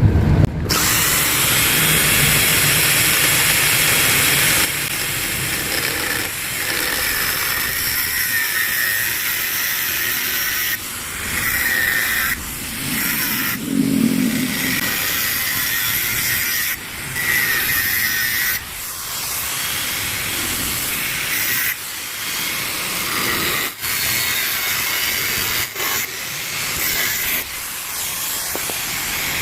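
Angle grinder cutting into the steel body of a used Yamaha RX-King two-stroke exhaust to open it up, a harsh, steady grind that breaks off and starts again many times as the disc works along the metal.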